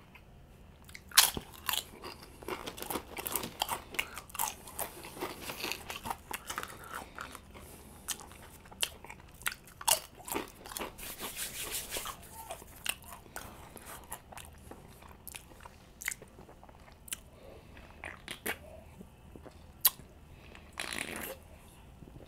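Close-up crunching and chewing of tortilla chips: a run of sharp, crisp crackles as the chips are bitten and chewed.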